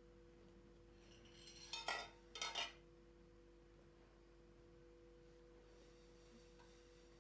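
Glass dishes clinking as they are set down and moved, two short bursts of clinks about two seconds in, half a second apart, over a faint steady hum.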